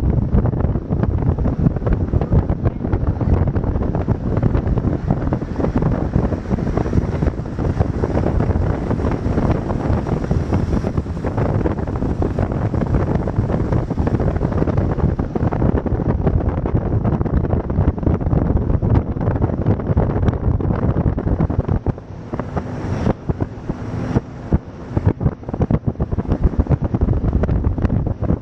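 Wind buffeting the microphone on a moving motorboat, over the low noise of the boat's engine and the water. It eases briefly and turns gusty a few seconds before the end.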